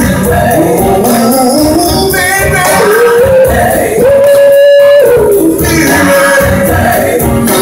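Live soul-blues band with drums, horns and several singers playing a slow number. About four seconds in, the band cuts out for a moment under one long held high sung note, then comes back in.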